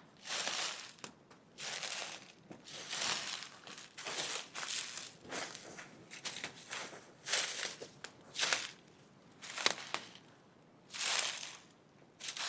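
Slow footsteps crunching through dry leaf litter, about one step a second.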